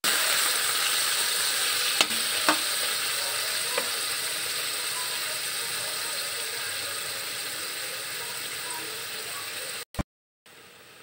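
Pork pieces sizzling in oil in a wok while a metal spatula stirs them, with a few sharp clinks of the spatula against the wok about two, two and a half and four seconds in. The sizzle fades slowly and cuts off suddenly near the end.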